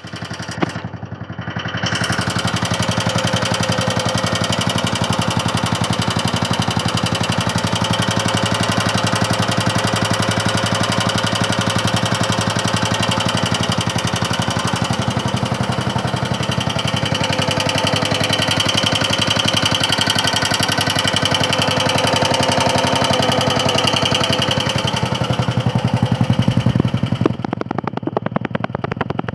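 Vehicle engine running steadily with a fast, even rattle, the clattering noise the recording is made to show. It drops in level near the end.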